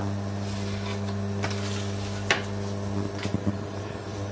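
Electric hob humming steadily as it heats a frying pan. A sharp tap about two seconds in and a few light knocks near the end come from a wooden spatula against the pan.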